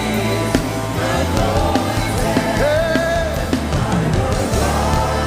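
Live gospel worship band playing between sung lines, with steady bass and drums under it.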